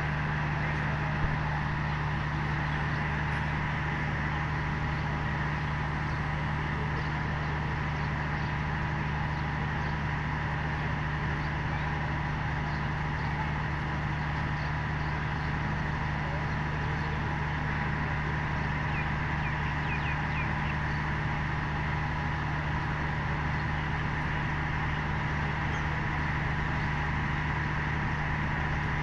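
Steady low diesel engine hum from a standing train idling, unchanging in level, with a few faint high chirps about two-thirds of the way in.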